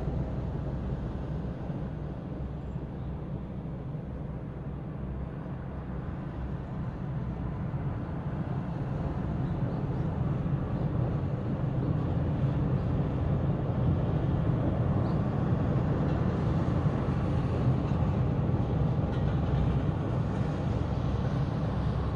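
Distant city traffic: a steady low rumble of vehicles that grows louder about halfway through.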